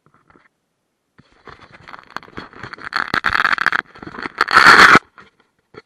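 Rustling and scraping handling noise on a small camera's microphone, in irregular bursts that build up and are loudest about four and a half seconds in, then stop.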